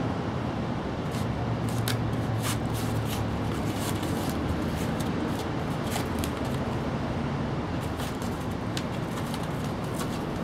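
A steady low rumble, with scattered light crackles and taps from a kitten pawing and biting at a flattened sheet of cardboard.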